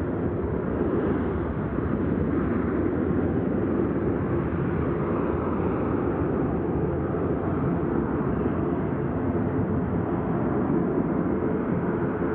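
Boeing 737-800's twin CFM56-7B jet engines running as the airliner rolls away down the runway, a steady low rumble with no rise or break.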